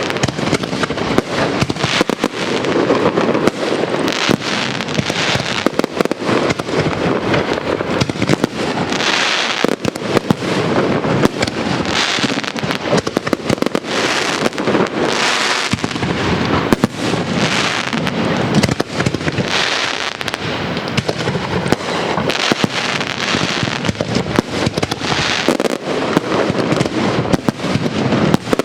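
Castillo fireworks display: a dense, unbroken barrage of bangs and crackling, many reports a second, with no pause.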